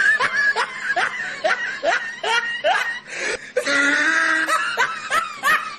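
A woman laughing in a long run of short bursts, pausing briefly a little past halfway.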